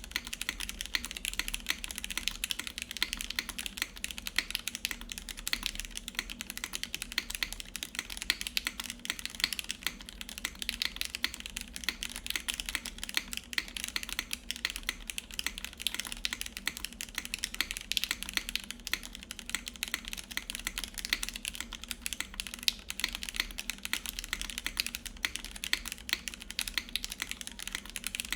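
Continuous typing on a Sensy Lab Supernova 60% mechanical keyboard with lubed Gateron Yellow milky-top linear switches, a 4 mm ABS plate and GMK Dolch keycaps: a dense, even run of keystroke clicks with no pauses.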